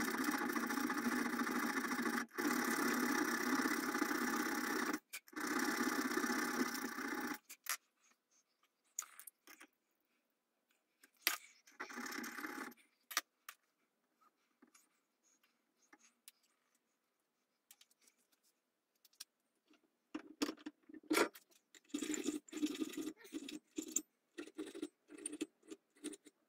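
A steady noise for about the first seven seconds, cutting off abruptly, then scattered small metallic clicks and scrapes as a brass front sight is handled and fitted into the dovetail notch of a rifle barrel clamped in a bench vise.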